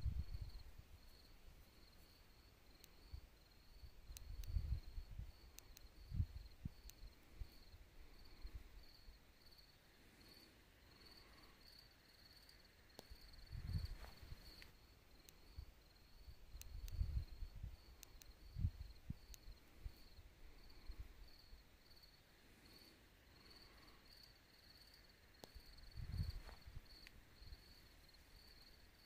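Faint field ambience dominated by crickets chirping, a thin high pulsing trill that runs on without a break. A few brief low muffled bumps come through now and then.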